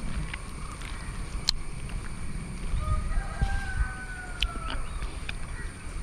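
A distant rooster crowing once, a long, slightly falling call about three seconds in. Under it is a low rumble on the microphone, with a few sharp clicks.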